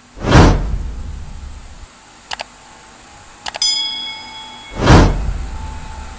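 Edited-in sound effects of a subscribe-button animation: a whoosh, a mouse click, a second click followed by a bell-like ding, then another whoosh.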